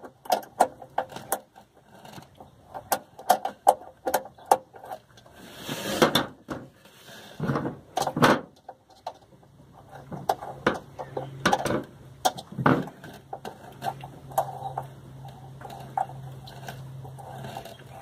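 Swiss Army knife's small flat-head screwdriver clicking and scraping against the metal screw and band of a hose clamp on a water heater supply line, in scattered sharp ticks with a few longer scrapes. A low steady hum comes in about halfway through.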